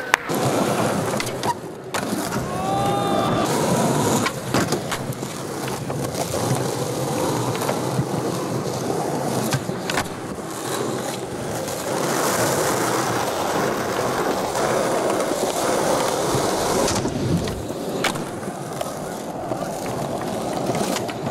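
Skateboard wheels rolling over rough, worn concrete in a steady grinding rumble, with sharp clacks of the board several times.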